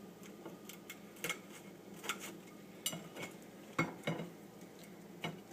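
Metal utensil clinking and scraping against a deep fryer while fried Twinkies are fished out of the hot oil: several sharp clinks, the loudest about four seconds in, over a faint steady background.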